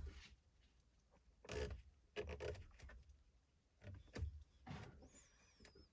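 Several faint, brief clicks and rustles of hands working a car's dash controls as the console lights are switched off, with a faint, thin, wavering high tone near the end.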